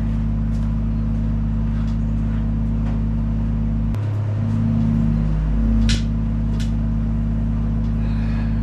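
Steady low mechanical hum, with a brief shift in its tone about four seconds in and a sharp click or knock about two seconds later.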